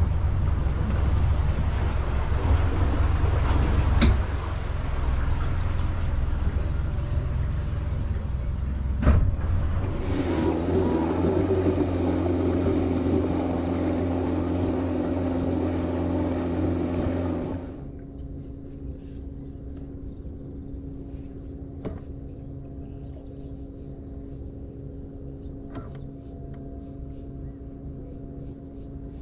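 A fishing boat's motor running under way, a steady low rumble with two sharp knocks. About two-thirds of the way through it cuts to a much quieter steady hum.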